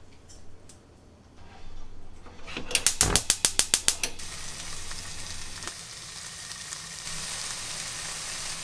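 Gas stove's igniter clicking rapidly, about nine clicks at roughly six a second, about three seconds in; the burner then catches and a steady hiss follows.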